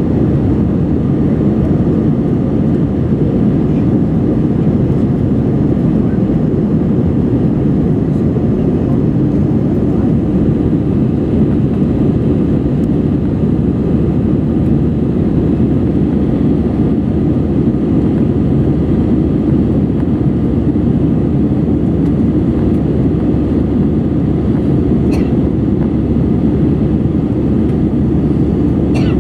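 Steady cabin noise inside an Airbus A320-200 climbing after takeoff: the even, low roar of the engines and the airflow past the fuselage, unchanging throughout.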